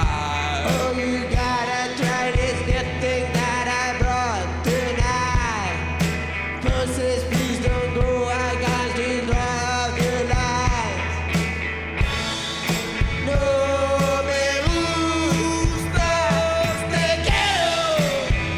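Rock-and-roll band playing live: drums, bass and electric guitar under sung vocals, with several falling glides in pitch.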